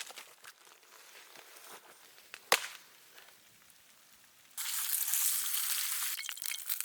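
Scattered crackles and one sharp snap, then a loud sizzling hiss starts about two-thirds of the way through.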